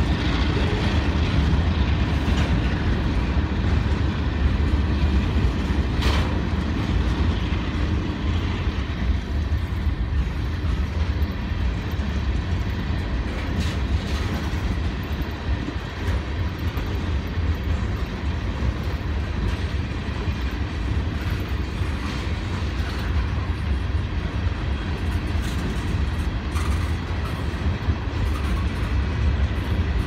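Freight train cars rolling past at close range, a steady heavy rumble of wheels on rail with a couple of sharp clanks.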